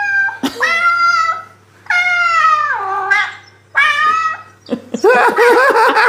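Recorded cat meows played through a phone's speaker: a series of long, drawn-out meows, then about five seconds in a quick run of short chirping calls. It is a cat-call sound meant to make house cats come running.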